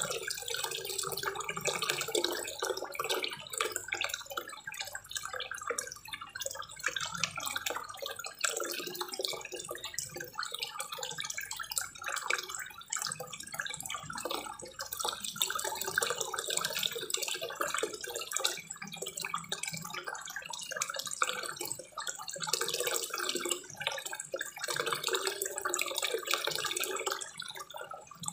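Small waterfall spillway pouring into a koi pond: continuous, uneven splashing of falling water.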